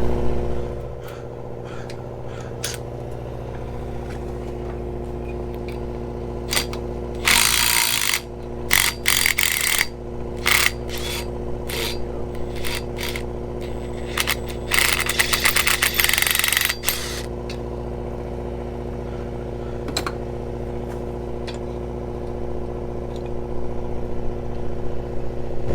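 Hand-tool work on seized stainless bolts: several short runs of rapid metallic clicking and scattered single clicks, over a steady machinery hum.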